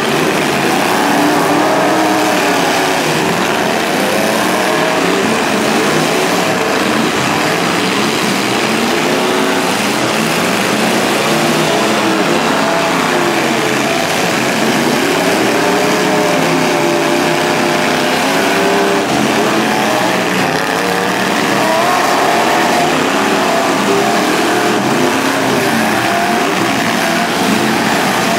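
Several demolition derby truck engines running and revving at once, their pitches rising and falling over one another without a break.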